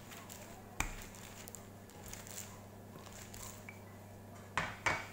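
Knocks and light rustles of a wooden rolling pin handled over plastic-wrapped dough: a sharp knock about a second in and two louder knocks near the end, over a faint steady hum.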